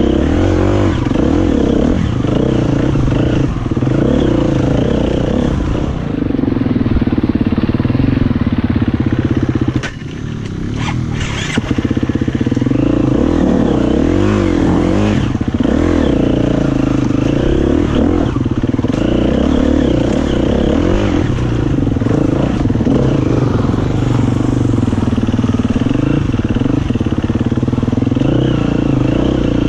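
Enduro dirt bike engine, heard close from the rider's helmet camera, revving up and down as the bike rides a rough trail. About ten seconds in the engine note briefly drops away, with a few clicks, then picks up again.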